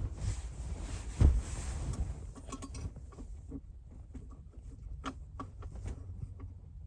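Small clicks and rustling from handling speaker wire, with one thump about a second in, over the low steady rumble of the car's idling engine.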